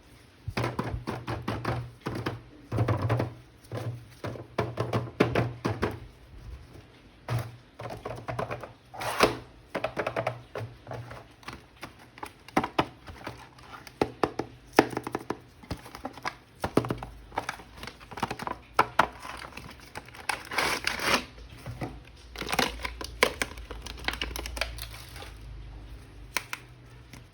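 Plastic packaging crinkling, crackling and tearing in uneven bursts as a toy action figure is unwrapped by hand, with occasional thunks of the box and figure being handled.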